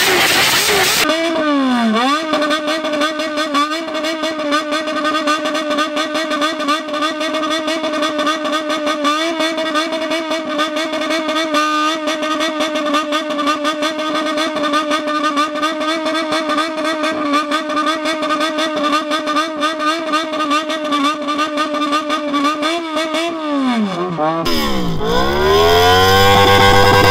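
Motorcycle engine revved up about a second in, then held at a steady high pitch with small wavers for over twenty seconds before the revs drop away. Near the end a second motorcycle engine starts revving, rising in pitch.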